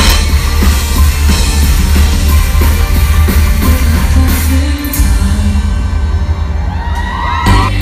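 Live rock band playing loud: electric guitar over bass and a drum kit, with a heavy low end, recorded through a phone's microphone in the crowd.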